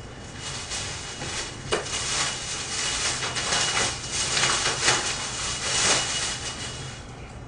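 Rummaging under a table: an uneven rustling and crackling of things being handled, with a sharp knock about two seconds in and a couple of smaller knocks later.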